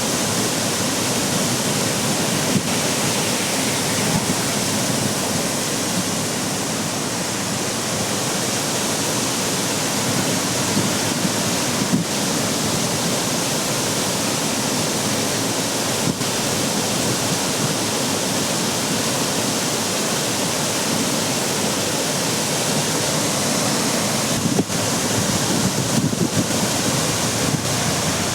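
Torrent of rain-swollen streamlet water rushing and cascading onto a road: a loud, steady rush with no letup.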